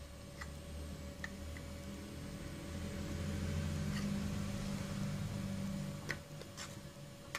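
Small clicks and taps of a plastic thermostat case being handled and opened, its circuit board worked out by hand, over a low background hum that swells in the middle.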